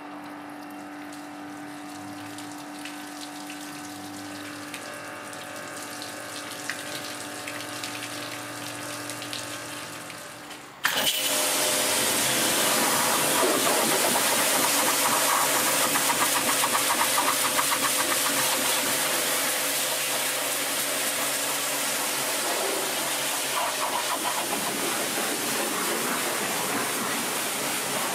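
Pressure washer running and spraying water over a car, with a steady motor hum under the water. About 11 seconds in it jumps to a much louder, steady hiss of the jet striking the paintwork and wheel up close.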